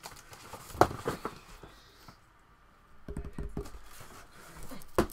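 Cardboard boxes being handled and shifted on a table: scattered clicks and taps with light scraping, a sharp click about a second in, a cluster of knocks past the middle and another sharp click near the end.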